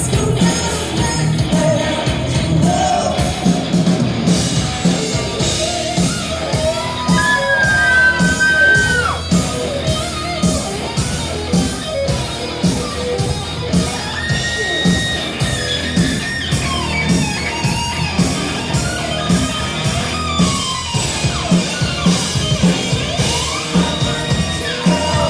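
Live rock band playing a song: electric guitar and singing over drums keeping a steady beat, with held, bending melody notes.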